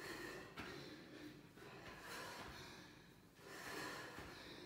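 A woman breathing hard from the exertion of squat jumps, with about four forceful, noisy breaths.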